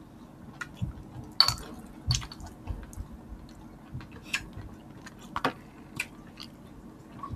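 Close-miked chewing and wet mouth sounds of people eating, broken by scattered short, sharp clicks.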